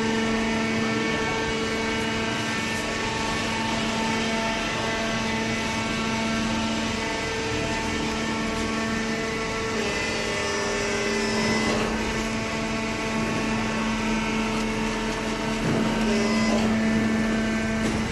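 Industrial cardboard shredder and baler machinery running: a steady electric-motor hum with a strong tone and its overtones over a constant rushing noise, the pitch of some overtones dipping briefly about halfway through and again near the end.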